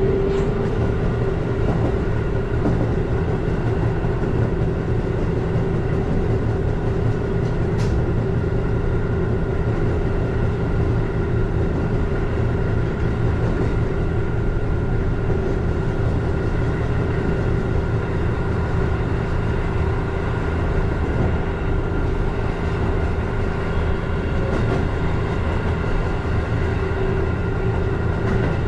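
Keihan Katano Line electric commuter train running at steady speed, heard from inside the front car: a steady rumble from the wheels and running gear with a steady motor whine over it.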